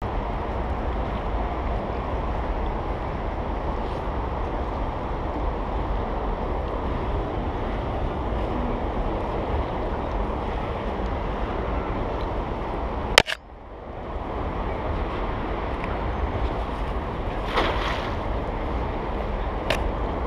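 Steady rush of fast river current running over rocks, with a low rumble of wind on the microphone. A sharp click about two-thirds of the way through, after which the sound drops away briefly and returns.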